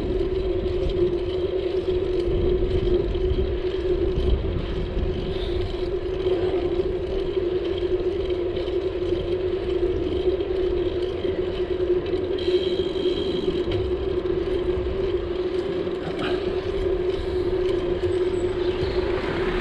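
Steady riding noise of a bicycle on a paved street: a constant mid-pitched hum over a low wind rumble, softened by a foam windscreen.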